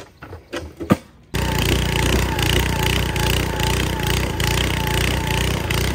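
Two-man gas-powered earth auger running under load as its bit bores a post hole into the hillside; the engine comes in suddenly about a second in, after a few light knocks.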